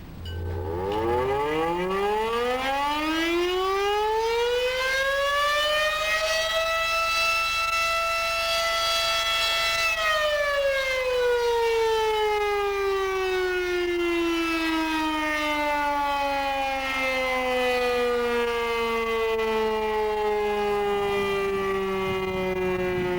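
Vintage Model 5 siren sounding a test. Its wail climbs in pitch over about seven seconds, holds steady for about three seconds, then falls slowly as the siren winds down.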